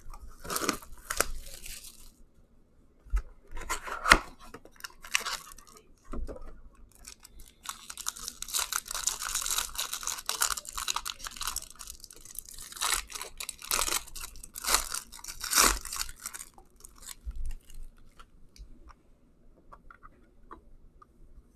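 Wrapping on a 2019 Bowman Chrome HTA box and its packs being torn open and crinkled by hand. It comes in several bouts, the longest lasting about eight seconds, and dies down near the end.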